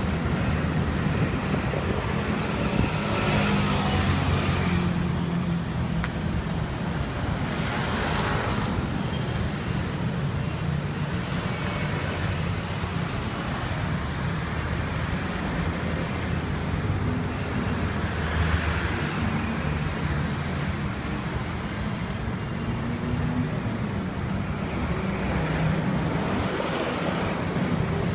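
Street traffic noise: a steady low rumble of road vehicles, with several vehicles swelling louder as they pass.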